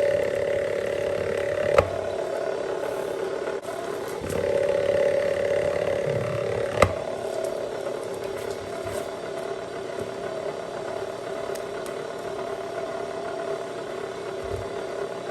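Copper wire stripping machine running with a steady, pitched mechanical hum that swells for a few seconds in the middle as wire is fed through. Two sharp clicks, about two and seven seconds in.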